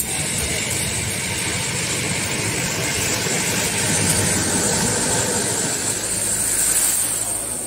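A steady mechanical rumble with a hiss over it, engine-like, holding level throughout.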